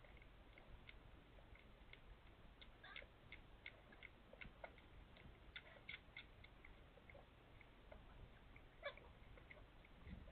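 Near silence with faint, scattered tiny squeaks and ticks from newborn kittens nursing.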